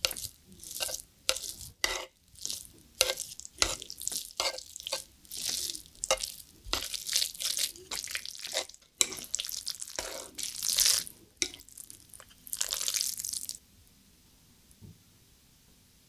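Chopsticks stirring and tossing sesame-oil-dressed thin wheat noodles (somyeon) through saucy spicy stir-fried cuttlefish on a sizzling plate: a quick run of irregular wet, sticky squelching strokes that stops about thirteen seconds in.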